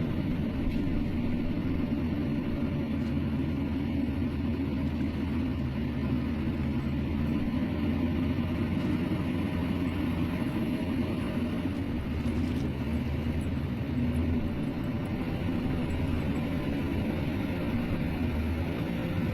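Diesel engine of heavy earthmoving machinery (bulldozer or excavator) running steadily at work, a continuous low engine drone.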